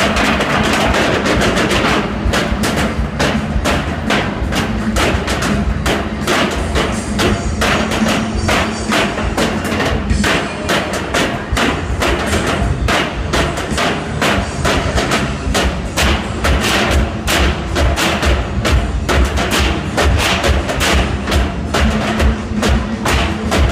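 Drum group beating metal oil barrels with wooden drumsticks in a steady rhythm, with sharp stick clicks over deep booming hits.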